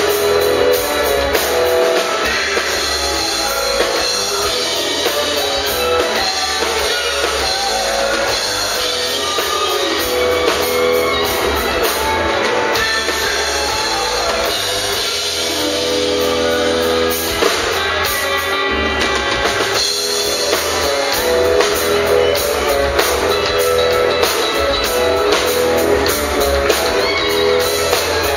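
Live rock band playing: electric guitar, electric bass and drum kit with a steady beat.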